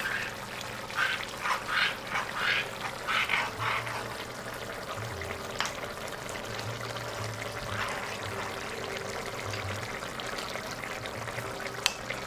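A porcelain spoon stirring cornstarch slurry in a ceramic bowl, a quick run of short scraping, sloshing strokes in the first few seconds. After that a low steady hum remains, with a few sharp clicks, one near the end.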